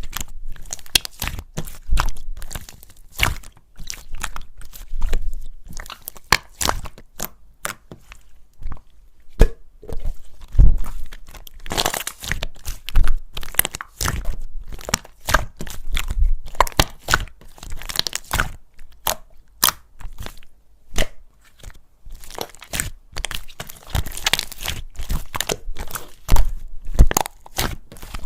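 Slime being squeezed, kneaded and mixed by hand, giving a steady stream of irregular sharp clicks and pops.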